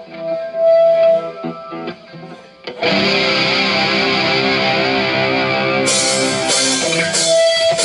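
Rock band rehearsal heard through a direct line recording: a distorted, effected electric guitar holds a sustained note and chords, then about three seconds in the full band comes in with drums and bass, cymbals joining near the end.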